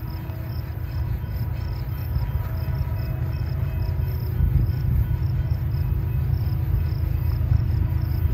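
Deep rumble of an approaching BNSF freight train's diesel locomotives, growing steadily louder. Insects chirp in a steady pulse a few times a second over it.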